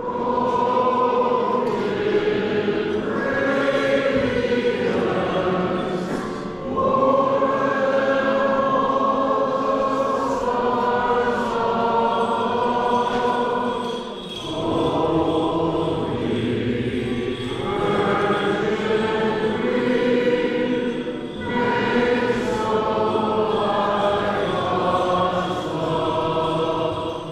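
Choir singing slow, sustained church chant in four long phrases, with brief breaks between them.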